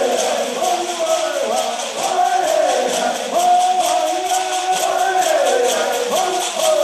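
Chickasaw double-header dance song: a group of voices chanting and singing phrases back and forth, over a steady beat of shaker rattles.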